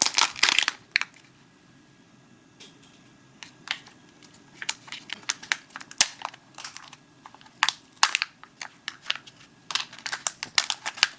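Foil wrapper of a Kinder Joy egg crinkling, with sharp plastic clicks as the egg is unwrapped and opened. The crackling is dense in the first second and again over the last few seconds, with sparse clicks between.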